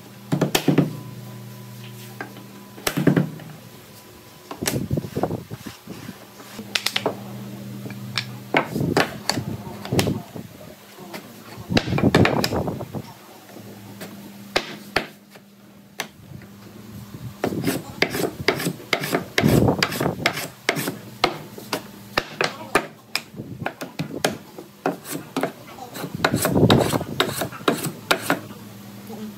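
Pieces of wood handled on a wooden workbench: boards and blocks set down, slid and knocked together, giving scattered knocks and clicks with some scraping, in uneven clusters.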